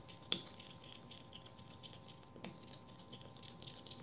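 Faint light ticks and scrapes of a stick dabbing in a small plastic pot of craft paint, with a sharper click about a third of a second in and another about two and a half seconds in.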